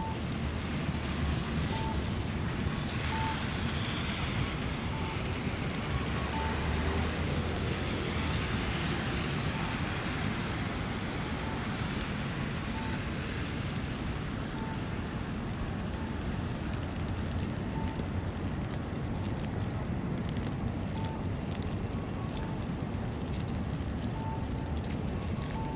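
City street traffic on a snowy day: a steady low hum with a vehicle passing on the slushy road in the first several seconds. A faint short beep repeats about every one and a half seconds.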